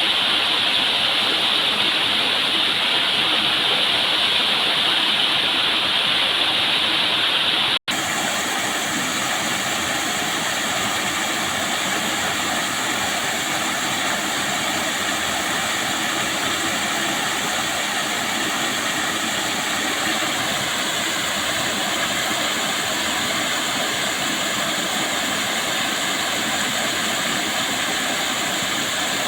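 Waterfall rushing in a steady, dense roar of falling water. About eight seconds in the sound cuts out for an instant, a splice between recordings, and comes back with a different, more even hiss.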